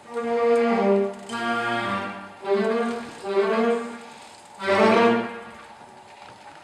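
Music: a melody of short, loud note phrases with brief gaps between them, the last phrase about five seconds in and then fading.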